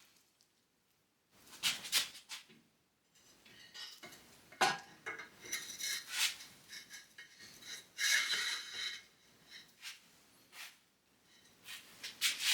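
Greased VW torsion bar leaves being worked into the front beam tube: metal scraping and clinking in a few separate spells, with one sharper clank about four and a half seconds in.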